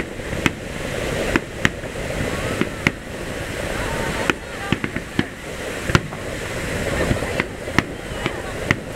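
Fireworks aerial shells bursting: about a dozen sharp bangs at uneven intervals, some in quick pairs, over a steady background of voices.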